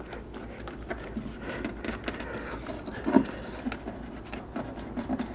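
Small plastic clicks and scrapes as a motorcycle's wiring-harness electrical connector is worked loose from its metal bracket by hand, with a louder knock about three seconds in.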